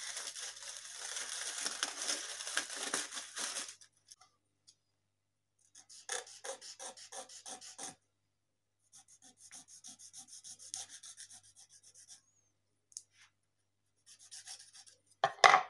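Aluminium foil crinkling as it is pulled off a plastic bottle, then a knife sawing through the thin plastic bottle in two bouts of quick scraping strokes, about four a second. A short, louder snap comes near the end.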